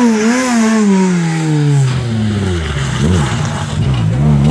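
Renault Clio rally car's engine passing close and slowing for a hairpin: its note falls steadily over the first two seconds, then the revs flick up and down a few times in quick blips as it turns in.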